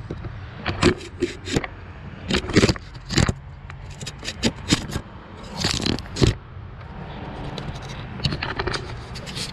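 Hands and tools working a drive belt around pulleys in a BMW engine bay: irregular scrapes and sharp knocks, with a longer scrape about six seconds in, over a steady low hum.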